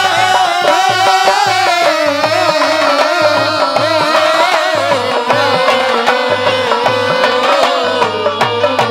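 Live Haryanvi folk music: a sustained, wavering melody line over a quick, steady hand-drum beat.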